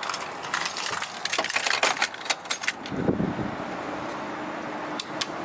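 Ignition keys jangling and clicking as they are handled and turned. About three seconds in, a low rumble starts and settles into a steady hum from the truck.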